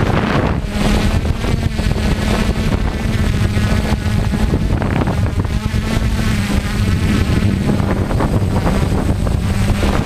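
Quadcopter's electric motors and propellers buzzing steadily, the pitch wavering as it flies low over the grass, with wind noise on its onboard camera's microphone.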